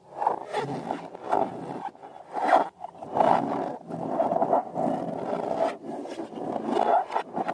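Irregular rubbery rubbing and scraping noises from balloons and slime being handled, in uneven swells.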